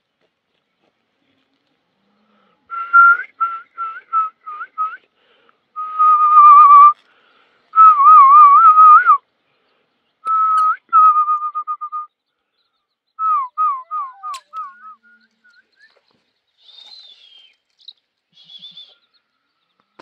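A person whistling loudly: short trilled notes, then two long warbling notes and a run of quick ones, then a string of short falling whistles a little past the middle. Faint, higher chirps follow near the end.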